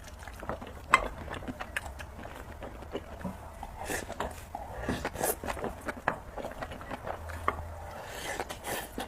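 Close-miked eating of spicy noodles: chewing and mouth sounds with several short slurps, and scattered clicks of utensils against the bowl, one sharp click about a second in.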